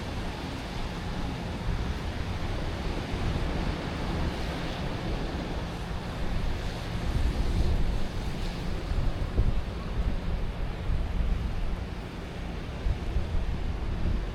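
Steady city-park ambience at night: a constant low rumble with a hiss over it, with no single event standing out.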